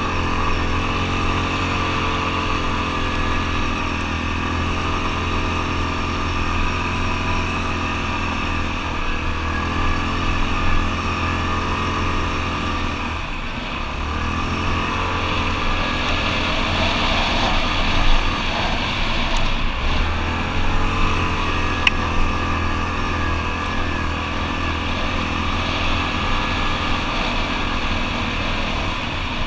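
ATV engine running at a fairly steady speed, easing off briefly about halfway through, with a few light knocks later on.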